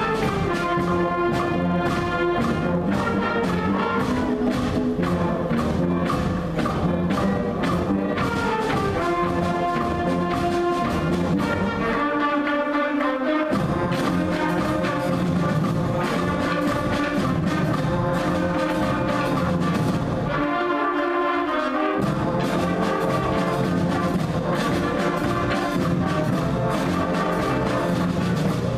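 School symphonic band of woodwinds, brass and percussion playing a piece over a steady percussion beat. The bass and low instruments drop out briefly twice, about twelve and twenty seconds in.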